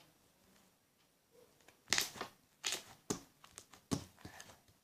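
Homemade slime being handled: a few short crackling, squelching clicks, starting about two seconds in, after a nearly silent start.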